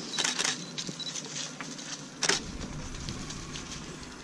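A DSLR camera shooting at close range: short high focus-confirmation beeps in the first second, and brief shutter clicks, the loudest about two seconds in.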